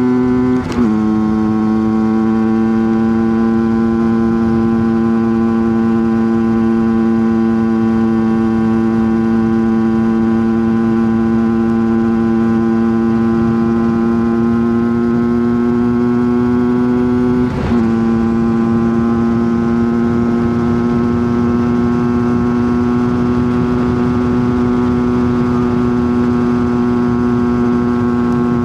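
Rieju MRT Pro's 50cc two-stroke engine held at high revs at near top speed, a steady high note that dips for an instant less than a second in and again about 17 seconds in, then creeps slowly higher.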